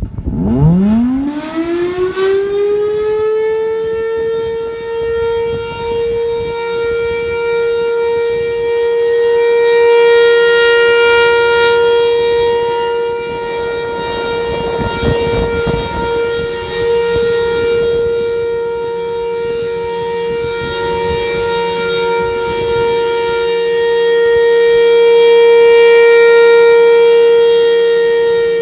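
Federal Signal Thunderbolt outdoor warning siren being tested: it winds up from a low growl to full pitch in about three seconds, then holds one steady, loud tone. The tone slowly swells and fades as the rotating head turns.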